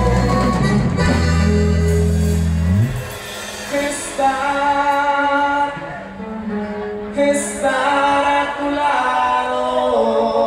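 Live norteño-style band playing through the stage PA: button accordion, guitar and drums, with a voice singing. The heavy bass notes drop out about three seconds in.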